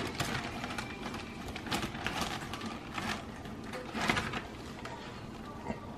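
Plastic zip-top bag crinkling and rustling in several short bursts, loudest about four seconds in, as a hand pulls floured meat pieces out of it.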